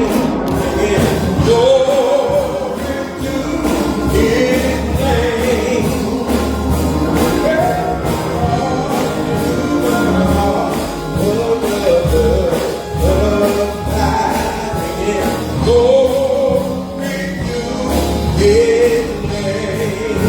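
Gospel music with choir singing over a steady beat with bass.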